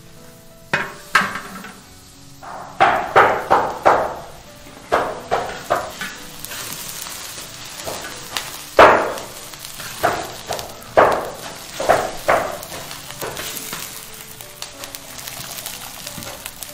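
A flat spatula scrapes and knocks against a large iron wok while beans are stir-fried, in quick bunches of strokes, with a steady sizzle of frying underneath. The sizzle grows louder about halfway through. Faint background music plays under it.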